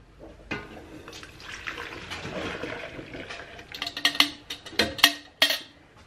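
Goat milk being poured between stainless steel milk pails, a splashing pour, followed by several sharp metal clinks of the pails knocking together.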